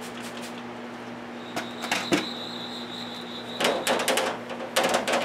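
Dry-erase marker writing on a whiteboard: a few short clusters of strokes, one scrape carrying a thin high squeak for about two seconds. A steady low hum runs underneath.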